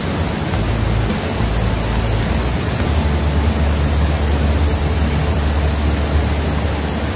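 Steady rushing of river water, a constant hiss with a low rumble underneath.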